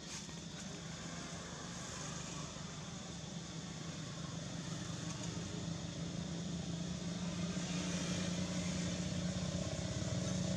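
A motor engine running with a steady low hum, growing gradually louder.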